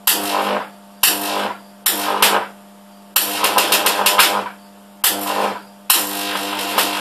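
High-voltage arcs struck about seven times from a stacked microwave-oven-transformer (MOT) supply as its output is shorted with a rod. Each arc is a sudden burst of crackling that lasts from half a second to about two seconds, with a longer run about three seconds in and another near the end, over a steady low hum. The shorts load the supply to about 14 amps.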